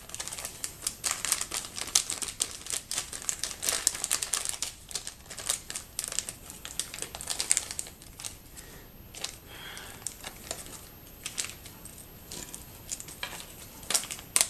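Quick, irregular clicking and crinkling of small knife parts and tools being handled and fitted during reassembly of the knife's pivot.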